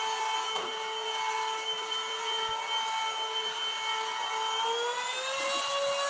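Russell Taylors cordless stick vacuum cleaner running while its nozzle is pushed over a carpet rug: a steady motor whine that rises slightly in pitch about five seconds in.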